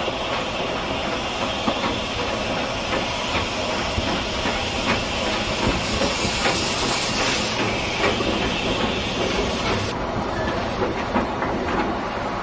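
Hunslet Austerity 0-6-0ST saddle-tank steam locomotive passing slowly at close range, with a steady steam hiss and the irregular clicks and knocks of wheels running over the rails. The hiss drops away sharply about ten seconds in.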